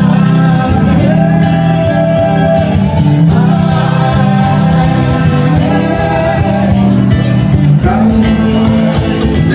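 Loud music with a singing voice over guitar.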